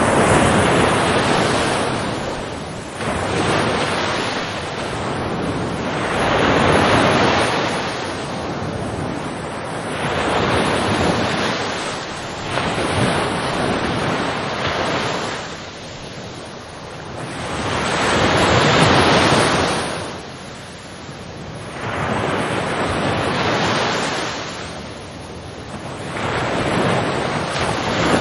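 Ocean waves breaking and washing in, each swelling up and fading away every few seconds.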